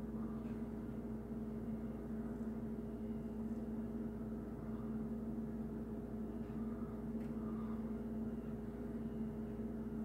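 Steady low electrical-sounding hum at one constant pitch, with a few faint small ticks.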